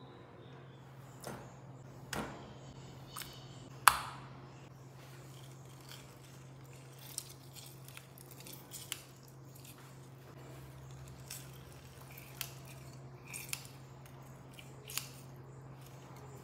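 Scattered sharp clicks and knocks of kitchen handling, the loudest about four seconds in, with lighter clicks from a hinged metal hand lemon squeezer pressing over raw pork slices in a glass bowl.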